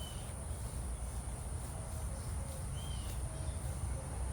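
Insects trilling steadily at a high pitch, with two short bird chirps, one at the start and one about three seconds in, over a low rumble.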